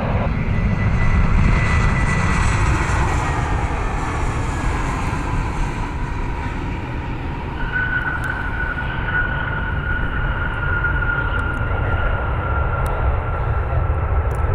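Delta Airbus A320 jet landing: a steady engine roar with a whine that slowly drops in pitch as it passes. About halfway through, as it rolls out on the runway, a new steady, higher whine comes in and holds.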